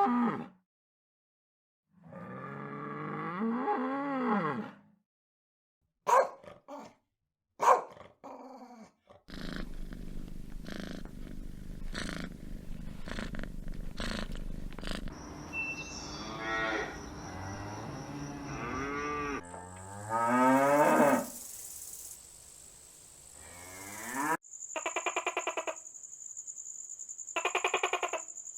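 A string of different animal calls, cut one after another, some of them pitched calls that rise and fall. Near the end a steady high-pitched tone sets in.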